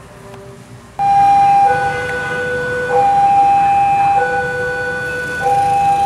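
Railway level-crossing warning alarm sounding a loud two-tone signal, a higher and a lower note alternating about every 1.2 seconds, heard faintly at first and then loud from about a second in. It warns that a train is approaching the crossing.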